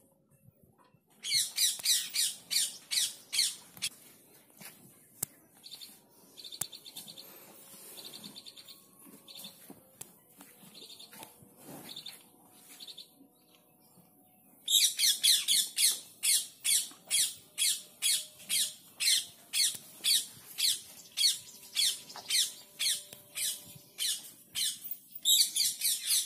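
A bird chirping, sharp high-pitched calls repeated about twice a second: a short run near the start, then a long run through the second half.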